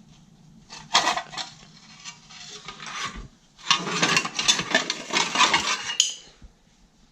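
Sheet-metal cooling tin of an air-cooled Volkswagen 1600 engine scraping and rattling as it is worked loose and pulled off. A sharp knock comes about a second in, and a longer stretch of clattering and scraping follows around the middle.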